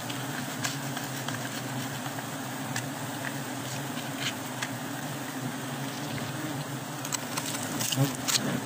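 Swarm of honeybees buzzing as a steady low drone around an opened wild comb, with scattered light clicks that come more often near the end.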